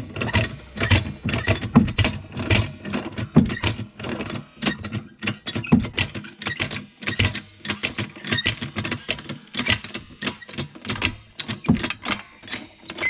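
Car jack being pumped up under a rear suspension arm: a fast, uneven run of metallic clicks and knocks.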